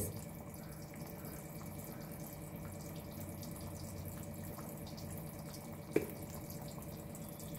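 Thick curry bubbling faintly in a kadai, with small soft pops over a steady low hum, and a single click about six seconds in.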